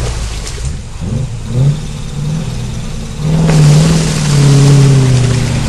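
Land Rover Defender's V8 engine being revved: a few short throttle blips over a steady idle, then from about three seconds in a longer rev held high.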